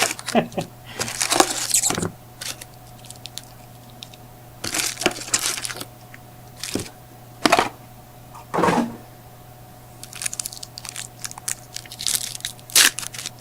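Trading-card pack wrappers being torn open and crinkled, in short irregular bursts of crackling.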